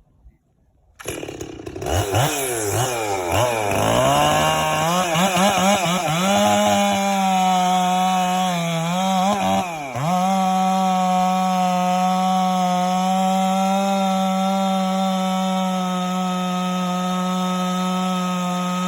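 Two-stroke chainsaw that comes in about a second in, revs up and down a few times, then runs steadily at full throttle with one brief dip near the middle, plunge-cutting into the back of a Douglas fir trunk for the felling back cut.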